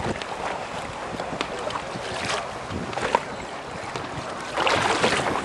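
Wind buffeting the microphone over choppy lake water, with scattered splashes and a louder rush of wind and water about four and a half seconds in.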